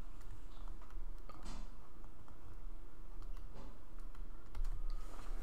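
Faint scattered clicks and taps of a pen stylus writing by hand on a tablet, over a low steady hum.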